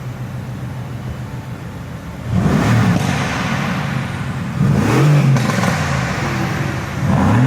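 Car engine idling, then revved up and let fall back three times: about two seconds in, around the middle, and near the end.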